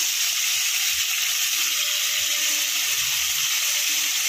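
Marinated chicken leg pieces frying in hot ghee and oil in a kadai: a steady, high sizzling hiss.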